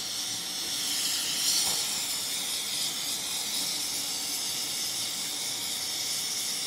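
A can of Ultra Duster compressed-air duster spraying through its straw into a cup of water: a steady hiss, a little louder about a second and a half in. The gas is being sprayed into the water to freeze it.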